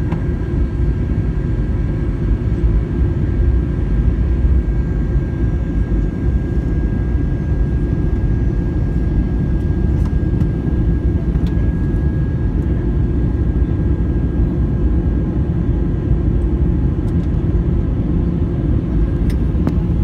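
Steady cabin roar of an Airbus A321 airliner in descent: engine and airflow noise heavy in the low end, with a faint steady high whine above it.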